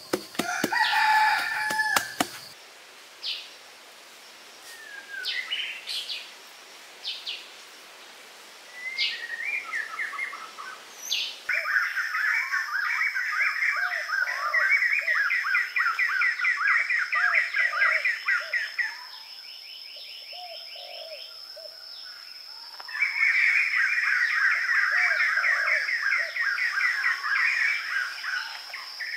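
Woodland birds calling and trilling, with a long, many-pitched call and a few clicks at the start. About a third of the way in a steady high-pitched insect drone sets in and stays, under long stretches of rapid trilling with a quieter gap a little past the middle.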